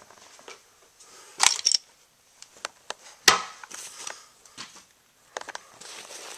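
Plastic toy trains and track being handled on carpet: scattered clicks and knocks, with a louder cluster about a second and a half in and one sharp click about three seconds in.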